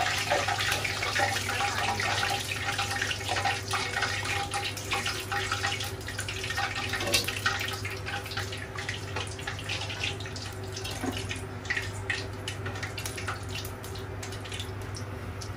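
Skewered pork deep-frying in a pot of hot oil: a dense sizzle full of small pops and crackles, easing a little in the second half, over a steady low hum.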